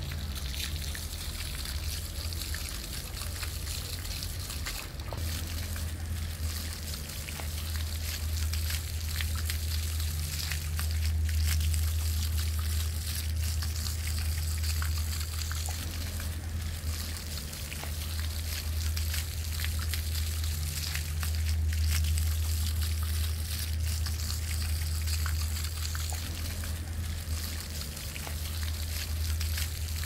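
Jets of a ground-level plaza fountain splashing and pattering onto wet paving stones, with a steady low rumble underneath.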